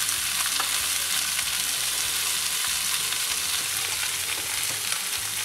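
Fish fillets sizzling steadily in hot ghee in a cast-iron skillet.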